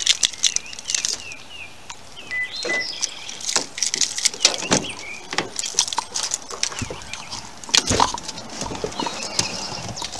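Birds chirping in short high calls over the clicks, knocks and rustles of keys and a car door being unlocked and opened, with a heavier knock near the end.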